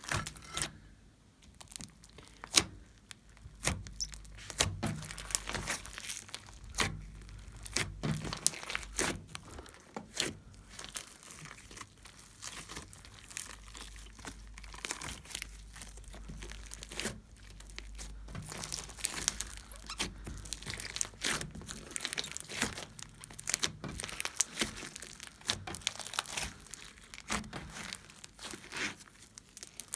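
Homemade slime being squished and stretched by hand, giving irregular sticky crackles and pops.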